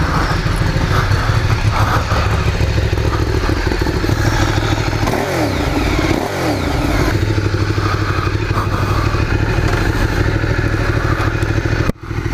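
2012 Ducati Streetfighter 848's L-twin engine running at a steady idle, with a short fall in pitch about halfway through.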